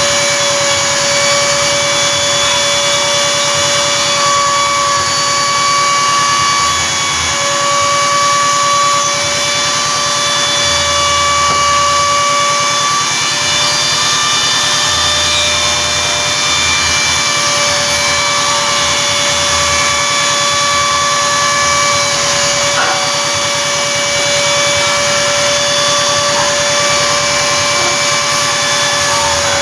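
CNC router spindle running with a steady high whine as its 6 mm end mill engraves 3 mm acrylic, the pitch dipping slightly now and then as the cutter bites.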